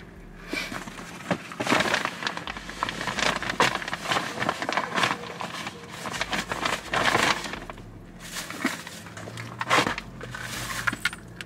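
Rustling, crinkling and light knocks as clothes, shoes and a boxed item are handled and packed into a reusable tote bag.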